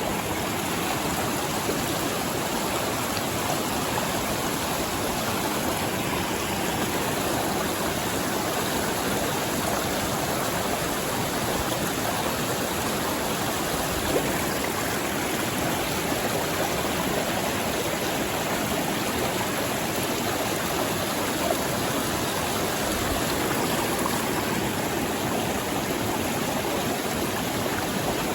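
Mountain stream water flowing steadily.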